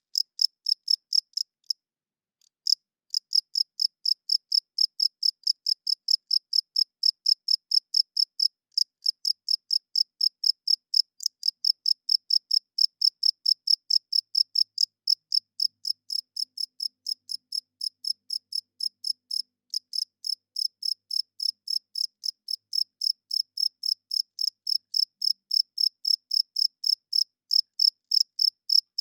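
Cricket chirping: a fast, even train of high-pitched chirps, about three to four a second. It starts suddenly, pauses briefly about two seconds in, then runs steadily. The chirps are made by a male cricket rubbing its wings together.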